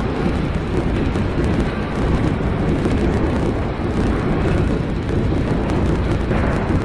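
SHANYI CNC 3-axis gantry milling machine cutting a steel workpiece under flood coolant: a steady, low, dense cutting noise.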